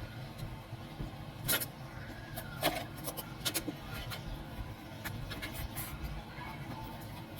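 A few sharp clicks or taps at uneven intervals, over a steady low hum.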